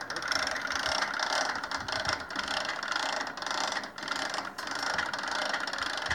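Hand-cranked winch of a 70-year-old military telescoping tower trailer, its ratchet pawl clicking steadily as the cable draws the mast sections up, with brief breaks between runs of clicks.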